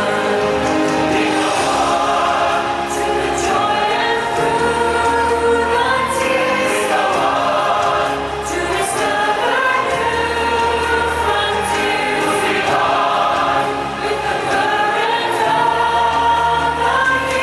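Orchestral show music with a choir singing sustained chords.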